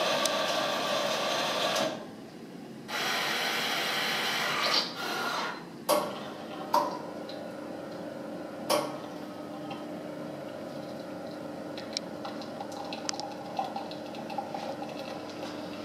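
Carimali automatic coffee machine making a coffee. The grinder whirs for about two seconds, stops, and whirs again for about two more. A few sharp clunks follow as the brew unit moves, then a steady quieter hum with faint ticking as the coffee brews.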